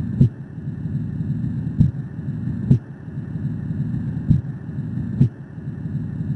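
Stethoscope recording of heart sounds: short low thuds in pairs, the pair repeating about every two and a half seconds, over a steady low rushing noise.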